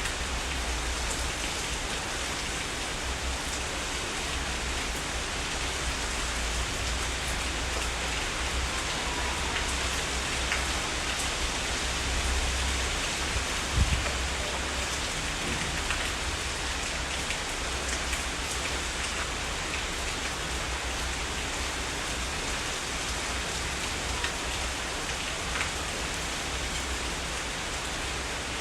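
Heavy rain falling steadily, an even hiss with a low rumble beneath it. One sharp, louder tap comes about halfway through.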